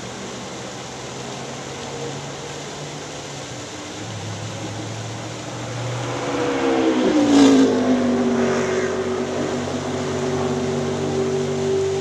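Waterfall splashing steadily under the distant drone of race car engines. About seven seconds in, a race car passes close, swelling to its loudest and dropping in pitch as it goes by.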